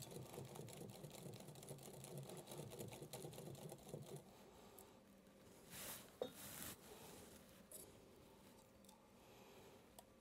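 Faint, rapid ticking of a wire balloon whisk stirring cream in a glass mixing bowl, dying away about four seconds in to near silence.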